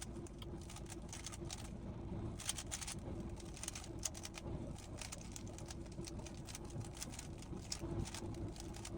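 Rubik's cube being turned by hand, its plastic layers clicking in quick, irregular runs of short snaps, over a steady low hum.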